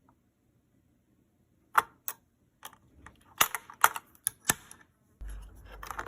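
Irregular sharp clicks and snaps of an Intel LGA CPU socket's retention lever and metal load plate being worked during a CPU installation, starting about two seconds in. A low rumble of handling joins near the end.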